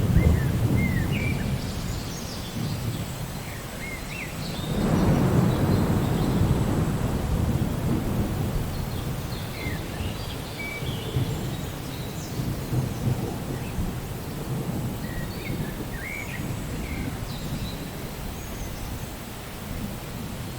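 Thunder rumbling in a rainstorm: one rumble fades away at the start, and another rolls in about five seconds in and slowly dies away. Birds chirp briefly now and then over the steady rain.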